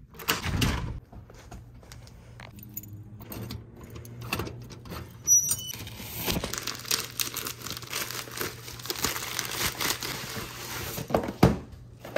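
Clicks and knocks of a door lock and knob being worked. About five seconds in, keys and a metal cluster mailbox door rattle, then a plastic poly mailer crinkles for several seconds as it is pulled out of the box. Near the end there are a couple of thumps as a cardboard box is handled.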